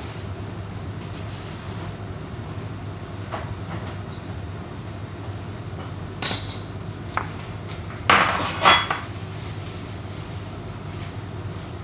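Kitchen cookware and utensils clinking and clattering: a few light metal knocks, then a louder burst of clatter about eight seconds in. A steady low hum lies underneath.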